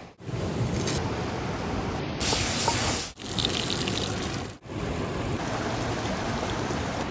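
Steady rush of running water, broken by a few abrupt cuts between short clips.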